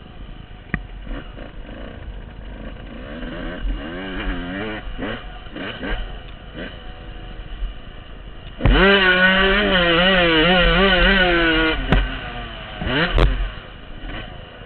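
Dirt bike engine heard from the rider's helmet, revving up and down as it is ridden over rough ground. About eight and a half seconds in it turns much louder, held at high revs for about three seconds with a wavering pitch, then drops back. A few sharp knocks come from the bike over the bumps.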